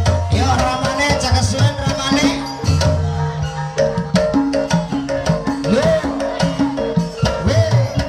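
Live Javanese gamelan music accompanying an ebeg horse-dance. Hand drums (kendang) beat a quick rhythm over held gong and metallophone tones.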